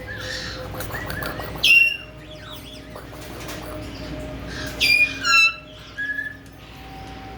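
Caique parrots giving shrill whistled calls that drop sharply in pitch: a loud one about two seconds in and two more near five seconds, with softer chirps between, over a steady low hum.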